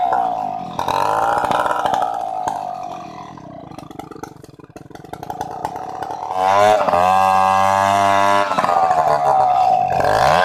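Stihl 070 chainsaw's two-stroke engine revving down to a quiet, ticking idle. About six seconds in it is revved up hard and held, then drops back and revs up again near the end.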